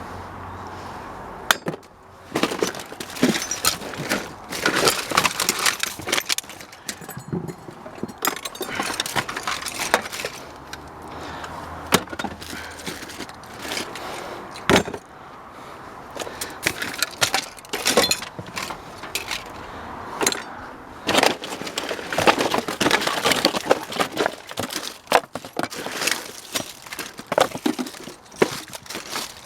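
Junk being rummaged through and shifted in a dumpster: an irregular clatter of knocks, clanks and glassy clinks, some sharp and loud.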